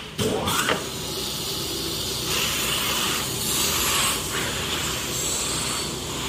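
Flatbed CNC digital cutting machine for PVC running with a steady hiss as its cutting head travels over the PVC sheet. A brief, louder rising sweep comes about half a second in.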